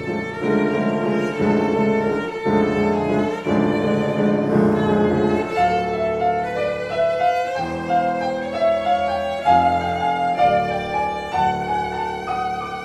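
Cello and piano playing classical chamber music: a bowed cello melody with sustained notes over piano chords.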